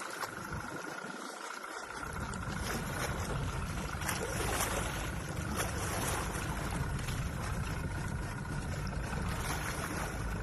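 Small boat idling on the water, its outboard motor running with a steady low rumble that comes in about two seconds in, over a background of water noise.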